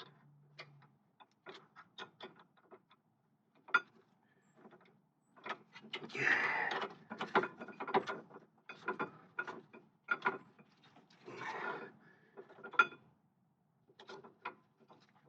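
A ratchet clicking in short irregular runs with metal tool clinks while a brake caliper bracket bolt is threaded in. There are two longer, busier stretches of clicking about six and eleven seconds in.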